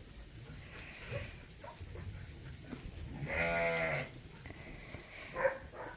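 A sheep bleating once, a single call of just under a second about three seconds in.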